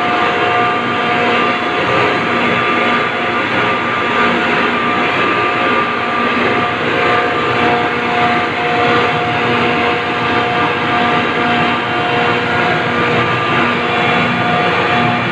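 Ice plant refrigeration compressors running: a loud, steady machine drone with a constant humming tone through it.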